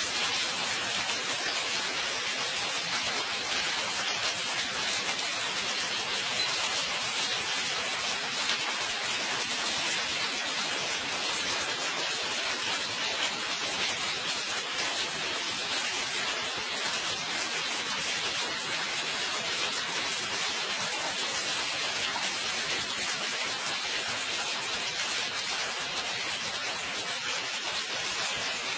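Intense hailstorm: hail and rain falling steadily, a dense, unbroken pelting of countless small impacts on the paved street and nearby surfaces.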